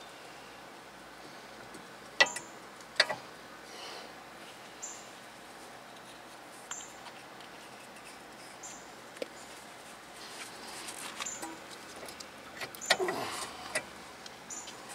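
Sharp metal clicks and a burst of clatter and scraping as a rear disc brake caliper is handled and seated over new pads and rotor, with two loud clicks early and a longer scrape near the end. A short high chirp repeats about every two seconds underneath.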